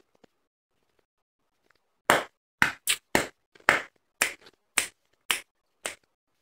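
Mouthful of blender-crushed snowy ice being chewed: about nine sharp crunches at roughly two a second, starting about two seconds in.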